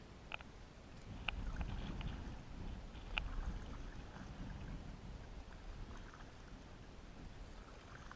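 Kayak being paddled: water splashing and sloshing about the hull with the paddle strokes, swelling about a second in, with a few sharp clicks early on.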